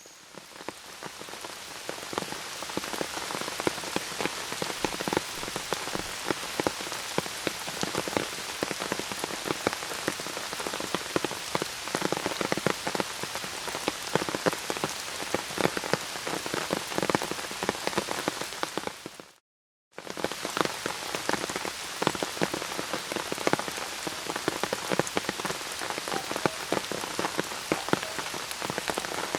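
Steady rain falling, with many distinct drop hits over a constant hiss. It fades in over the first couple of seconds, and the sound cuts out completely for about half a second roughly two-thirds of the way through before the rain resumes.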